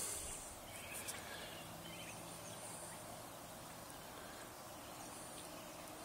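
Faint steady background hiss, with a couple of soft clicks about a second in.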